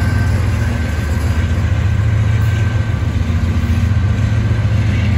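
Union Pacific diesel locomotives of an intermodal stack train passing close by, their engines running with a steady low rumble.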